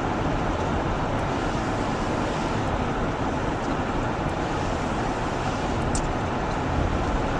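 Car travelling at road speed: a steady, even rush of tyre, wind and engine noise with no changes.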